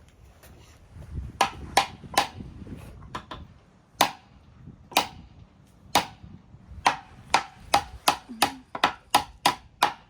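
Hammer striking a nail into wood: a few scattered blows, then strikes about a second apart, then a quicker run of about three blows a second near the end.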